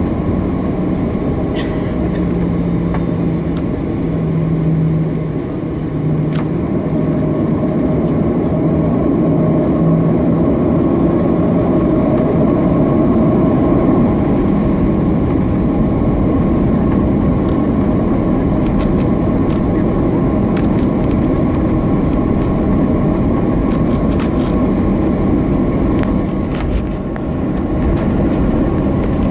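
Cabin noise of a Boeing 737-700 taxiing, heard from a seat over the wing: its CFM56 turbofans run steadily at low power over a constant rumble, with a low hum for about the first ten seconds and a few short clicks later on.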